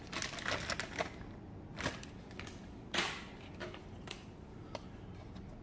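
Plastic toy parts and a clear plastic bag being handled: scattered light clicks and rustles, the loudest a knock about three seconds in.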